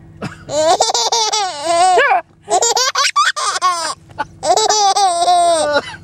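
Baby laughing in three long, high-pitched bouts of giggles.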